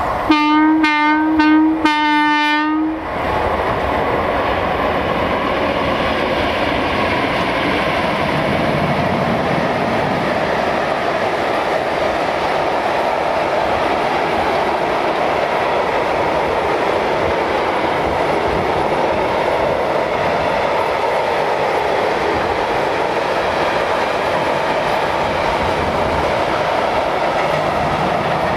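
Horn of an MLW diesel locomotive sounding two blasts over the first three seconds. Then comes the steady rumble and clatter of a long freight train's wagons rolling past.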